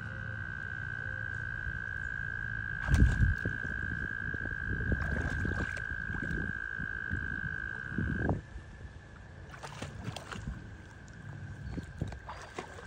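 German shorthaired pointer wading in pond water, splashing about three seconds in and again around five and eight seconds. A steady high-pitched tone is held alongside for about eight seconds, then drops to a fainter one.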